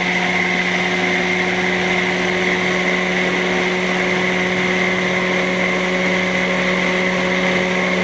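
Stick blender's motor running at its lowest speed, a steady even hum, with the blade head held still at the bottom of a jar of egg white and oil as the mayonnaise starts to emulsify.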